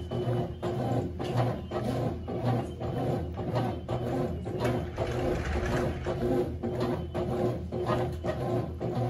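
Consul CWS12 12 kg top-loading washing machine agitating its load: the motor hums steadily while the water and laundry swish in a regular rhythm of about two to three strokes a second.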